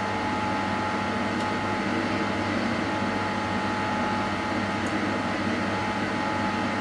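Bosch SGS3042GB/01 dishwasher running its Intensive 65 wash cycle: a steady, very noisy mechanical hum with a constant low drone and steady tones. A Hoover dryer is running in the background.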